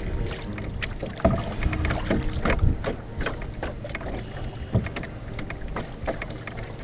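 Canoe being paddled: scattered splashes and knocks of the paddle strokes, over a steady rumble of wind on the microphone.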